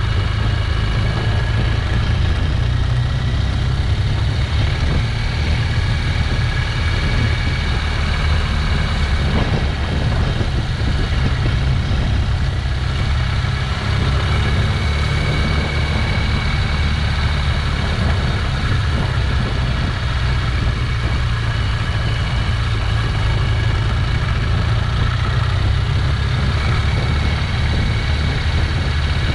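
Motorcycle engine running steadily at low road speed, heard from a camera riding on a following motorcycle, with a constant low rumble and faint steady whine.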